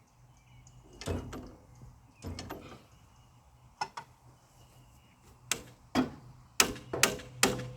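Hand tools knocking and clanking against metal while a tractor starter is fitted: a few separate knocks, then a steady run of sharp, ringing metallic strikes about two or three a second near the end.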